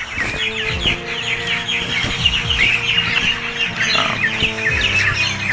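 Kookaburras calling in a dense, rapid chattering chorus, over soft background music with sustained low notes.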